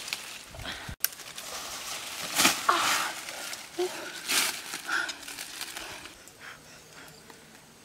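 Leaves and twigs rustling and crackling in several short bursts as a fruit is handled among the branches, with a sudden cut about a second in.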